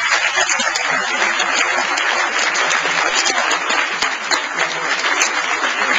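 Large audience applauding, many hands clapping in a dense, steady wash of applause.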